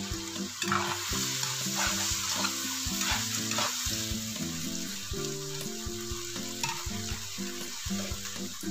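Green beans and shrimp sizzling as they stir-fry in a wok, with a spatula scraping and tossing them through the pan several times in the first few seconds.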